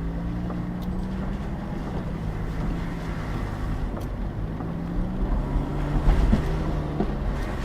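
Car engine running while driving, with wind rushing at the microphone; the engine note climbs at the start, sags about halfway through, then climbs again.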